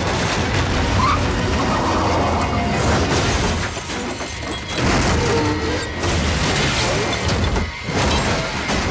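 Action film soundtrack: music over crashing and shattering sound effects as cars smash through wooden debris, with several heavy impacts.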